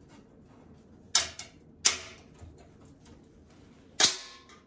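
Hand tools clicking against an aluminum catalytic converter shield as a knockout is pried loose: a few sharp metal clicks about a second in and just before two seconds, then a louder metallic clank with a short ring about four seconds in.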